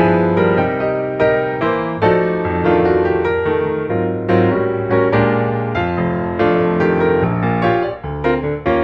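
Background piano music: a melody over chords, notes struck and decaying in a gentle steady rhythm.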